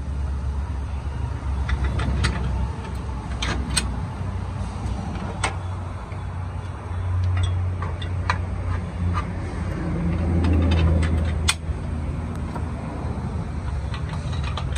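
Scattered sharp metallic clicks and taps as a step and hex bolts are fitted onto a steel trailer step tube, over a steady low rumble that swells and fades.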